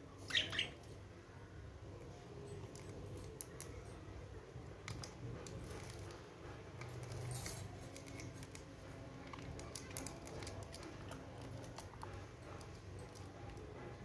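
Budgerigars nibbling and snipping sprouted grass with their beaks: faint, scattered little clicks and rustles, with a short chirp about half a second in.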